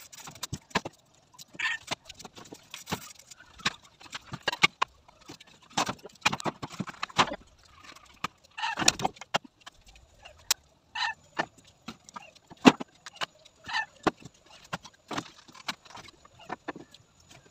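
Chickens clucking now and then, among scattered sharp clicks and knocks.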